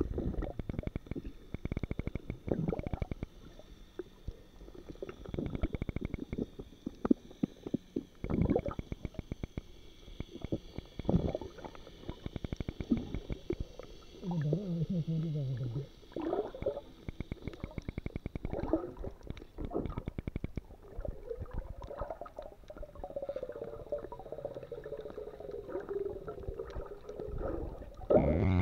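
Muffled underwater sound picked up by a submerged camera: dense rapid crackling and clicking with gurgles of moving water and bubbles. A low wavering tone comes in briefly about halfway and again through the last few seconds.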